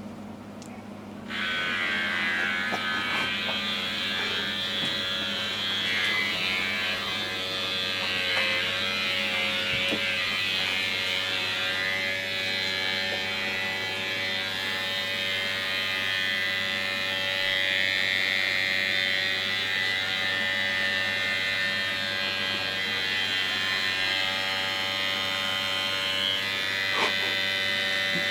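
Electric hair clippers switch on about a second in and buzz steadily.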